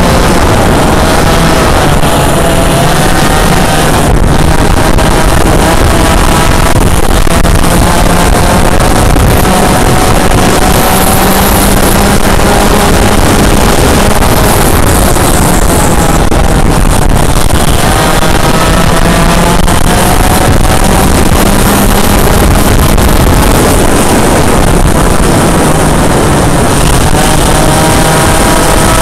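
Yamaha KT100 100cc two-stroke kart engine at racing speed, its pitch climbing on the straights and dropping into the corners, over and over. Loud, with a steady rush of noise underneath.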